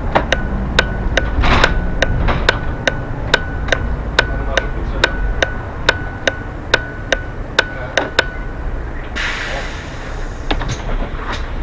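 A bus's turn-signal indicator ticking steadily, a little over two ticks a second, over the low rumble of the engine and road. The ticking stops about eight seconds in, and a second later comes a short hiss of compressed air from the bus's pneumatics.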